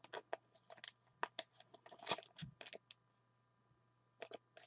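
Faint, irregular light clicks and taps, a dozen or so in quick succession, pausing for about a second near the end.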